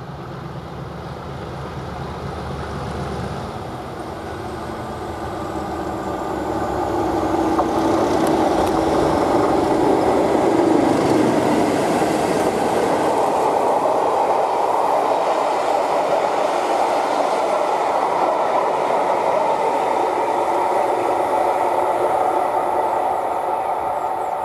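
A pair of British Rail Class 37 diesel locomotives, with English Electric V12 engines, passing at speed with a rake of empty coaches behind them. A low engine rumble comes first, then the train noise grows to its loudest as the locomotives go by, holds steady while the coaches run past on the rails, and eases off near the end as the train draws away.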